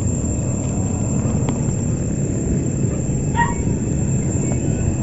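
Steady low rumbling background noise with no clear pitch, and a short faint chirp about three and a half seconds in.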